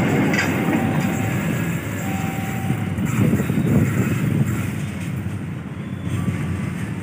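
An Argo-class executive passenger train's coaches rumble past on the rails, and the sound slowly fades as the tail of the train runs away down the track.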